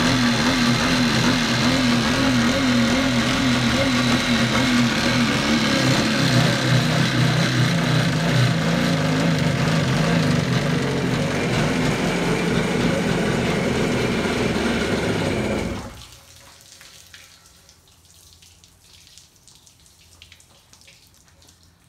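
1987 Kawasaki X2's two-stroke engine running on a flushing hose out of the water, settling to a lower speed about halfway through, then shut off abruptly. Afterwards hose water trickles and drips from the hull.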